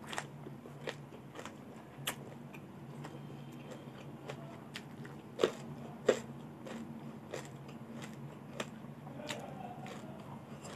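Close-up chewing of crisp raw vegetables: irregular crunches and wet chewing clicks, with two louder crunches about five and a half and six seconds in.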